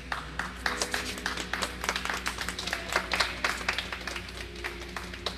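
A few spectators clapping, a thin scatter of claps that begins suddenly and tapers off near the end, over the skating music playing on the rink's sound system.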